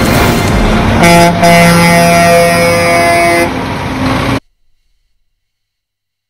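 Vehicle noise with truck air horns honking, one long held horn blast starting about a second in; all sound cuts off suddenly a little over four seconds in.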